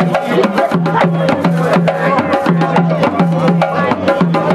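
Rope-tuned hand drums played in a fast, steady rhythm: dense sharp strikes several times a second over a deep drum note that keeps recurring.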